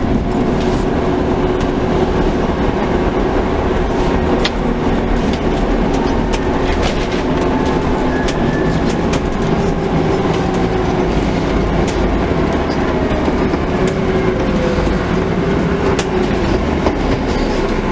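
Scania N250UD double-decker bus heard from inside the lower deck: a steady engine and running rumble, with scattered light clicks and rattles.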